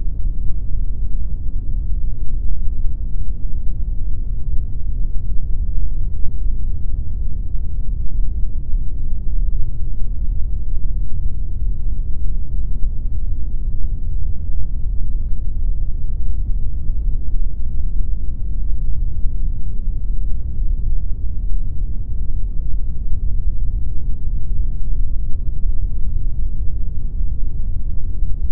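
Synthetic pink noise playing continuously: an even, unchanging rush of noise weighted toward the bass, with little treble.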